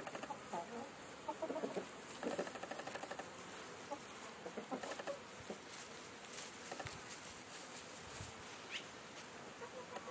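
Chickens clucking faintly in short, scattered calls, with one brief higher chirp near the end.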